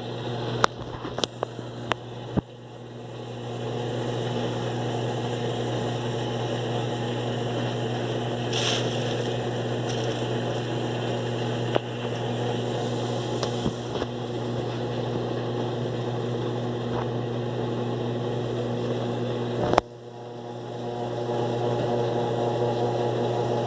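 Electrolux LTE12 washing machine running with a steady electric hum, after a few sharp clicks at the start. About twenty seconds in a sharp click breaks the hum briefly before it picks up again.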